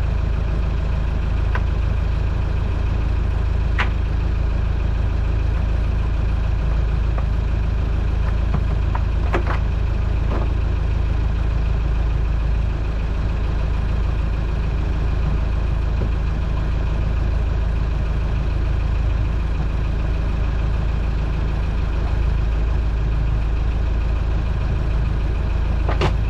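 Boat engine idling steadily, with a few sharp clicks scattered over the top.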